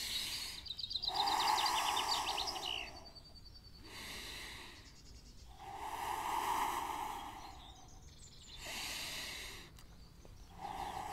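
A man breathing deeply and slowly during a stretching exercise: three long, forceful exhalations blown out through the lips, each about two seconds, with quieter inhalations between. A bird trills in quick chirps during the first breath.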